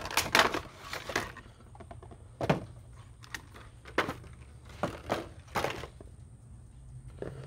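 Clear plastic packaging insert and cardboard of a Funko Pop box being handled as the vinyl figure is pulled out: a cluster of plastic crackles and clicks in the first second, then single clicks and light knocks about once a second.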